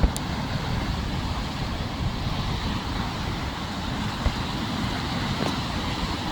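Rough sea: breaking waves surging against the rocks as a steady rush of surf, with wind buffeting the phone's microphone in a few short thumps.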